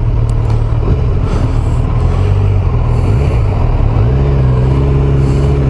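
Kawasaki Z900's inline-four engine idling steadily; about four seconds in its note steps up slightly and holds.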